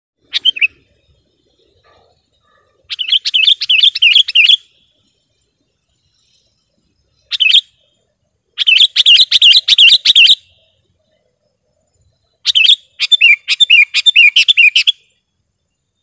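Sooty-headed bulbul (kutilang) calling loudly in bursts: two brief single notes and three runs of quick chirps, about five a second, each run lasting about two seconds, with short pauses between.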